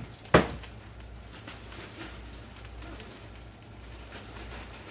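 Chorizo sizzling gently in a skillet over a low gas flame, a soft, even crackle. About a third of a second in there is one sharp knock, louder than anything else.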